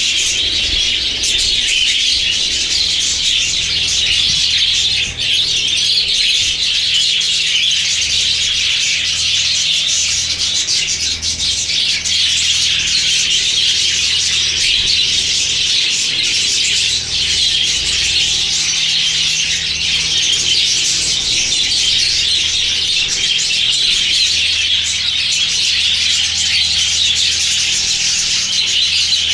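A flock of budgerigars chattering: many birds chirping and warbling over one another in a dense, unbroken din.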